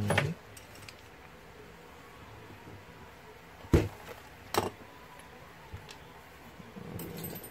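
Two sharp knocks of small airsoft pistol parts being handled and set down, a little under a second apart, with soft handling rustle near the end.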